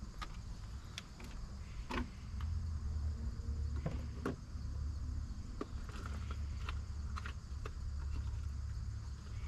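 Clicks of a car key being handled and turned in the ignition. From about two and a half seconds in, a low hum from the car starts, stops briefly and resumes.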